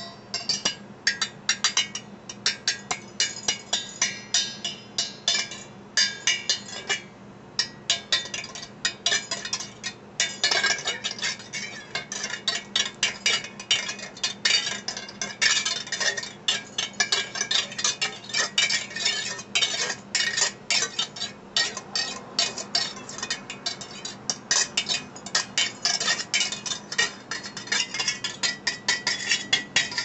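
Metal pot lid played as improvised percussion with a wire whisk: a quick, uneven run of light metallic clinks and taps, several a second, with a short pause about seven seconds in.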